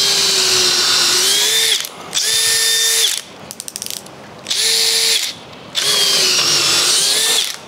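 Makita DDF486 18V brushless cordless drill driver running in second gear in four bursts of a few seconds each, a steady whine that dips slightly in pitch during the first and last bursts. Between the second and third bursts come a few quick small clicks. It is a test run of the drill after its electronics were repaired.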